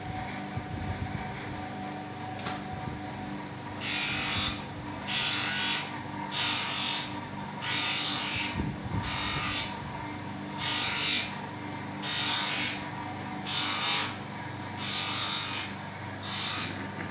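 Spectacle lens edge being ground by hand against the wheel of a small lens hand edger, in about ten short strokes roughly every second and a half, each a brief gritty hiss over a steady motor hum.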